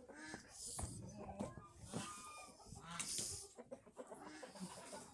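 A flock of chickens clucking softly, short calls from several birds one after another.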